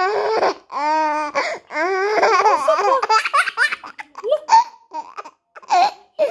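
A toddler laughing repeatedly in high-pitched bursts with short pauses between them, the longest run about two seconds in.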